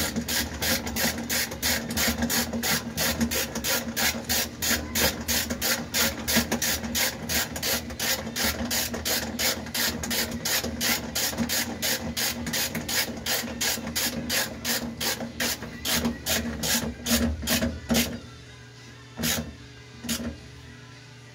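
Hand ratchet on a long extension clicking rapidly and evenly, about four clicks a second, as it is swung back and forth to tighten a fastener. The clicking stops near the end, followed by two single clicks.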